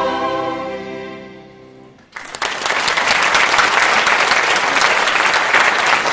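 A choir's final held chord fades away over about two seconds. Then audience applause starts suddenly and carries on steadily.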